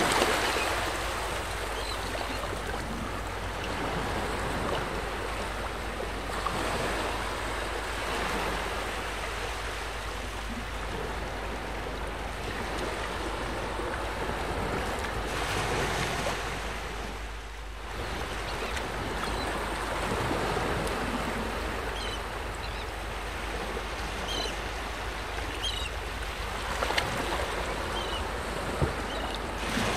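Gentle shoreline water and light wind, a steady rushing that swells and eases every few seconds. In the second half a few short, high bird chirps come through.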